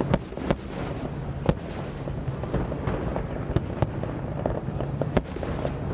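Aerial fireworks bursting: sharp bangs at irregular intervals, several in a few seconds, over a continuous low rumble of further explosions.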